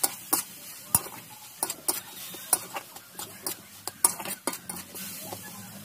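Long metal spatula stirring cabbage and potato curry in a metal kadai, scraping and clinking against the pan in irregular strokes.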